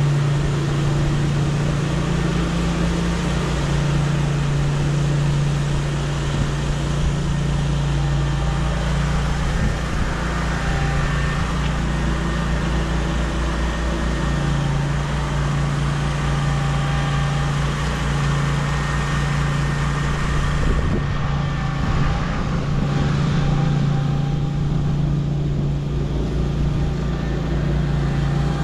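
Small gasoline engine running steadily with a low drone, as on a walk-behind core aerator (plugger) working the lawn.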